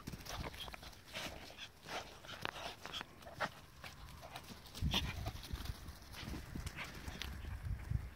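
Small dogs, papillons and a Pomeranian, moving about on grass right at the microphone: a run of short clicks, scuffs and rustles, with low thumps about five seconds in and again near the end.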